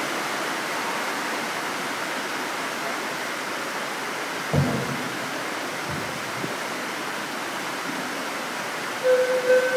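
Steady hiss of hall noise on a distant recording, with a dull thump about halfway through and two fainter knocks after it. Near the end a single held note of music starts and the level rises.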